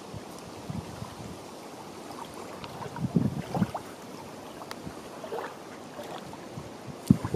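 Small waves lapping gently at a sandy lake shore, a steady wash of water sound. A few low thumps cut in about three seconds in and again near the end.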